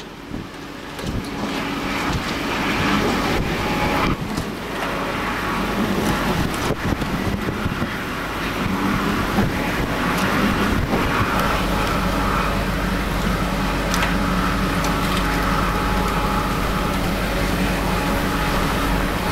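Hurricane-force wind with driving rain: a steady, noisy rush that builds over the first two seconds, broken by a few brief knocks. From about nine seconds in, a faint steady whine sits on top.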